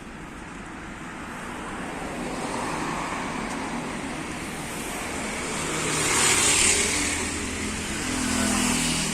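Road traffic noise, with vehicles passing by: the louder passes come about six and a half and eight and a half seconds in, the second carrying a low engine hum.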